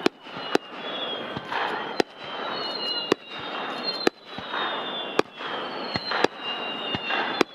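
Aerial fireworks display: sharp shell bursts bang about once a second, with a noisy wash between them and thin, high whistles that slowly fall in pitch.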